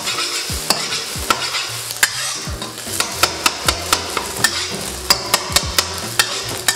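A metal spatula scraping and knocking against a nonstick wok as scrambled eggs are stir-fried in hot oil, with a steady sizzle. The sharp clicks of the spatula on the pan come faster from about three seconds in.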